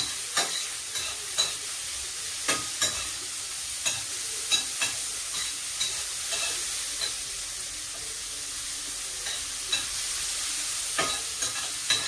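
Sliced mushrooms sizzling in a frying pan on a gas stove, with a spoon scraping and clinking irregularly against the pan as they are stirred.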